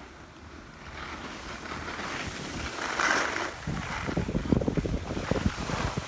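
Wind buffeting the phone's microphone while moving downhill, getting much heavier a little past halfway, over a hiss of sliding on packed, tracked snow.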